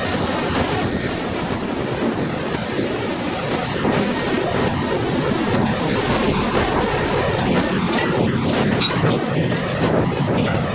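Steady mechanical rumble of a hydraulic log grapple crane working, mixed with the running noise of rail wagons. A few sharp clanks come near the end.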